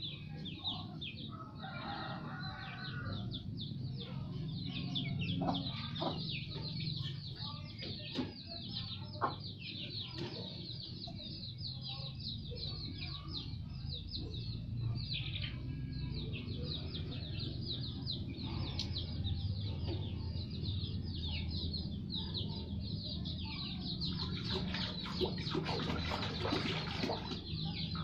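Chickens clucking and peeping in the background, a dense run of short high chirps throughout, over a steady low hum. A few light splashes and knocks of water stirred by hand in a plastic basin.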